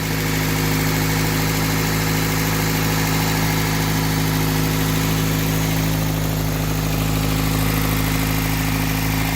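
Freshly rebuilt Toyota pickup engine idling steadily, an even, unchanging hum.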